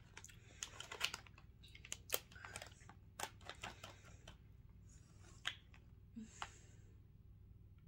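Plastic potato-chip bag crinkling in irregular sharp crackles as a hand reaches in and takes chips out.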